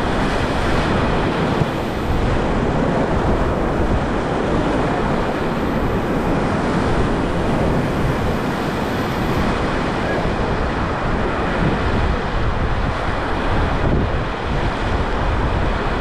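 River whitewater rushing steadily around a raft, with wind buffeting the microphone.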